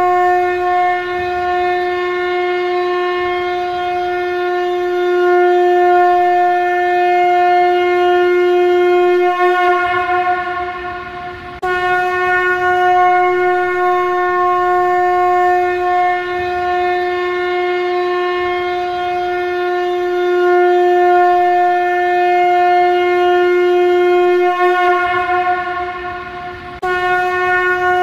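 Shankha (conch shell trumpet) blown in long held blasts, each a single steady note lasting over ten seconds. One blast wavers and fades out about ten seconds in, a new one starts abruptly about two seconds later, and another begins just before the end.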